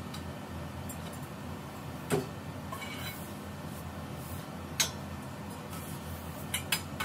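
Metal tubes of a clothing rack clinking and knocking against each other as they are handled and fitted: a few separate sharp clinks, two close together near the end.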